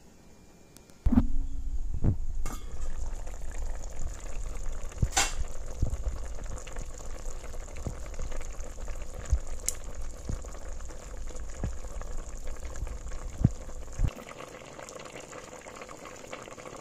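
Pot of chicken soup boiling, bubbling with scattered pops over a low rumble. The rumble cuts off suddenly about fourteen seconds in, leaving a softer hiss of simmering.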